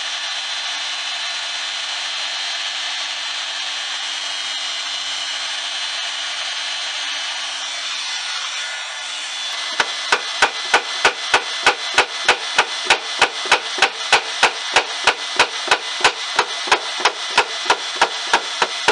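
Electric heat gun blowing with a steady whir, softening the hardened glue in a drawer's dovetail joint. About ten seconds in, a mallet starts rapping the wooden drawer about three times a second to knock the glued joint apart, while the heat gun keeps running underneath.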